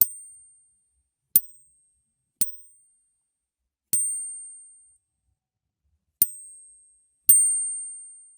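A metal coin clinked six times at uneven intervals, each strike a sharp click followed by a thin, high ringing tone that fades within about a second. The last ring is the loudest and longest.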